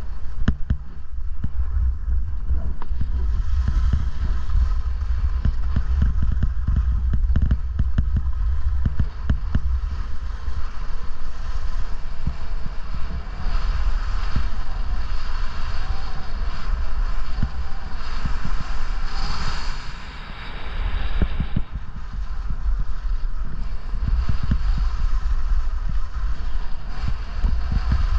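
Wind buffeting the microphone of a camera carried by a skier moving fast downhill, with skis scraping and chattering over the snow. A brief sharper hiss rises about two-thirds of the way through.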